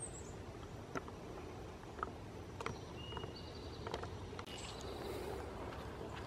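Footsteps on a dirt forest trail, about one step a second, over a steady low outdoor background.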